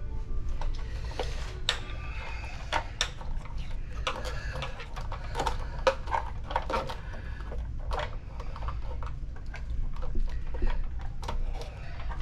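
Irregular light clicks and clatters of small hardware being handled, over a steady low hum.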